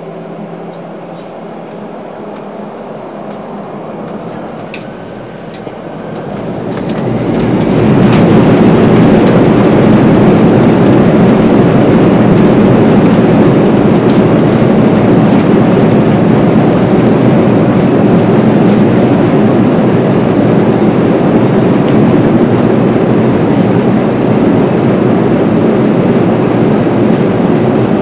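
An airliner's jet engines spooling up to takeoff thrust about seven seconds in, heard from inside the cabin, then a steady loud rush and rumble of the engines and the takeoff roll.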